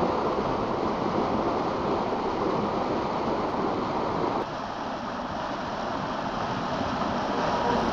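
Rushing stream water, white water tumbling through a narrow channel by a watermill: a steady rush that drops a little and changes suddenly about four and a half seconds in.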